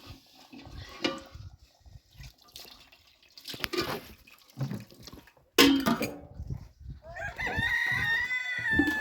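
A rooster crows once, a long call of about two and a half seconds near the end. Before it come scattered knocks, the loudest a sharp bang about halfway through.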